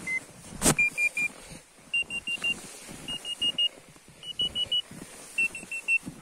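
Arva Evo 5 avalanche transceiver in search mode beeping in quick groups of short high beeps, three to a group at first and then four, with the pitch stepping up as the distance to the buried beacon closes to about half a metre. A single sharp knock sounds under a second in.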